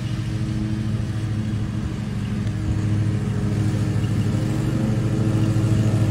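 Riding lawn mower's small engine running steadily with an even, rapid pulse, getting gradually louder.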